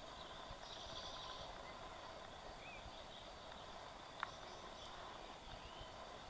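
Faint outdoor ambience: a steady hiss with a few faint high chirps, likely birds, and one sharp click about four seconds in.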